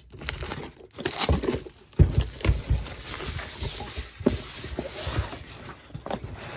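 Cardboard Pokémon TCG Elite Trainer Box and its plastic wrapping being handled and opened: rustling and crinkling, with several knocks of cardboard.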